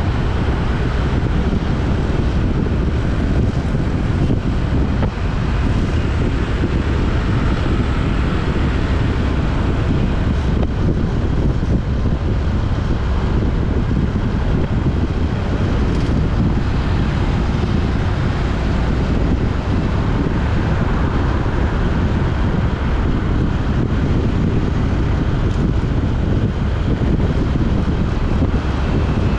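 Steady wind rushing over the microphone on top of the low, even rumble of a vehicle on the move.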